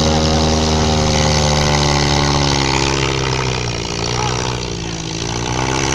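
Off-road vehicle engine running hard under load close by, its revs wavering, falling off about four seconds in and picking up again near the end.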